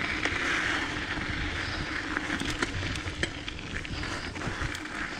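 Diamondback Mission 2 mountain bike descending a rough dirt trail: a steady rush of tyre and wind noise with scattered sharp clicks and rattles from the bike, coming more often after about two seconds.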